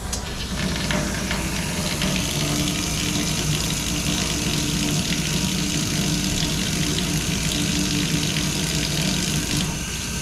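Water running steadily from a newly installed commercial kitchen faucet into the sink, with a low steady hum underneath. The water has just been turned back on to test the new faucet for leaks.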